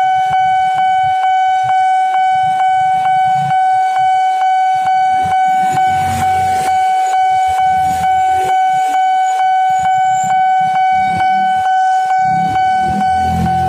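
Railway level-crossing warning bell sounding a steady electronic tone in rapid, even pulses, the signal that a train is coming and the barriers are down. Motorbike engines pass close by about six seconds in and again near the end.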